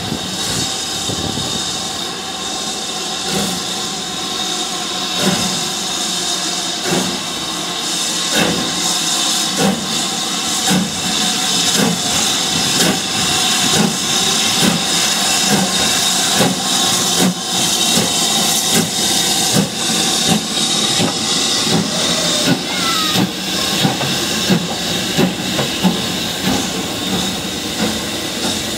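BR Standard Class 7 'Britannia' steam locomotive starting away with its train: a steady loud hiss of steam under the chuff of its exhaust. The beats come closer together as the engine gathers speed.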